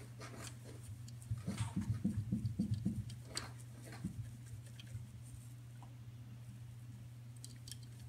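Small clicks and taps from a Goffin's cockatoo moving about on a wooden perch, with a quick run of low pulses, about seven a second, that begins about a second in and stops by the three-second mark, over a steady low hum.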